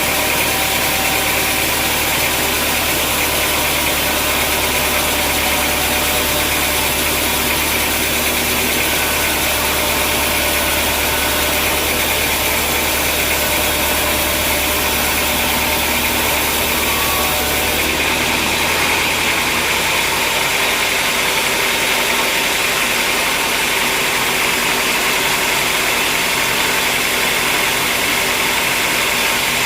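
Sawmill machinery running steadily: a continuous mechanical hiss with an engine-like low hum, which drops away about two-thirds of the way through while the hiss carries on.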